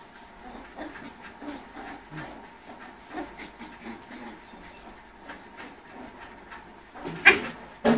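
Spitz puppies panting and making soft, irregular little sounds, with one loud, sharp call about seven seconds in.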